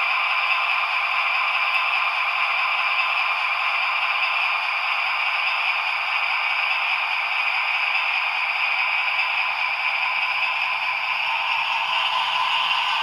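Jouef HO-scale model of the BB 67455 diesel locomotive running slowly over the track and points: a steady hissing rattle from its motor, gears and wheels on the rails.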